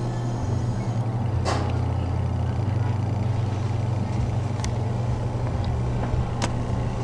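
Steady low mechanical hum inside an enclosed Ferris wheel gondola as it rides around the wheel, with a few light clicks.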